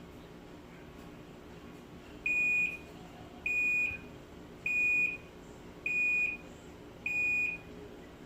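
Panasonic NA-F70S7 washing machine's end-of-cycle buzzer: short, identical high beeps, about one every 1.2 seconds, starting about two seconds in. They signal that the Tub Hygiene cleaning cycle has finished.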